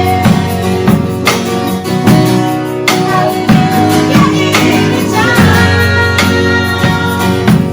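Worship band music: a strummed acoustic guitar with sustained pitched parts over a steady beat, and no words sung clearly.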